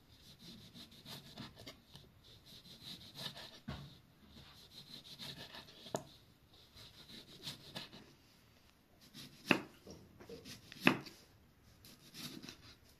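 Kitchen knife slicing tomatoes on a wooden log-slice cutting board: the blade cuts through the skin and taps and scrapes on the wood in a run of short strokes, with two sharper, louder knocks on the board past the middle.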